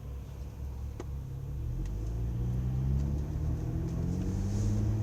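A BMW 335is's twin-turbo straight-six engine pulling the car along, its low hum rising steadily in pitch as the revs climb from about a second and a half in.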